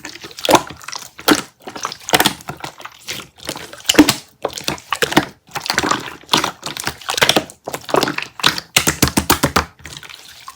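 Slime being squished and folded by hand, giving quick clusters of crackling pops and clicks in bursts about every half second to a second.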